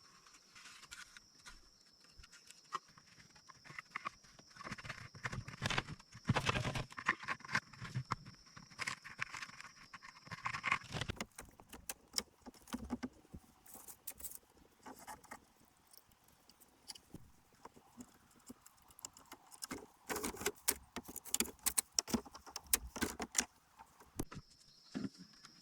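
Irregular clicks, knocks and rustling from hand work with bamboo and grass, busiest in two stretches. A steady high insect buzz runs through the first half and comes back near the end.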